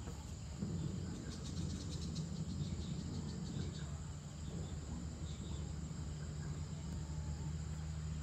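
Evening insects, crickets by the sound of it, chirping in rapid pulsing trills, clearest in the first couple of seconds, over a steady low hum.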